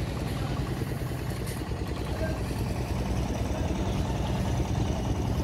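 Diesel truck engine idling steadily, a low, even rumble.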